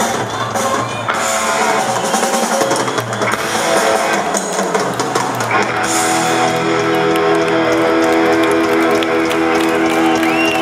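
Live rock band playing with electric guitar, bass guitar and drum kit in an instrumental stretch. About six seconds in, the guitars settle into a held, ringing chord over busy cymbals.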